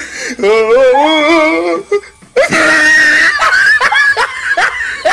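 Laughter: a long, wavering laugh, then a brief shrill burst about two and a half seconds in, then a quick run of short laughs.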